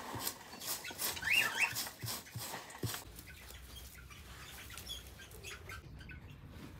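A dog whining briefly: two short high rising-and-falling cries about a second and a half in, among light rustling and knocks.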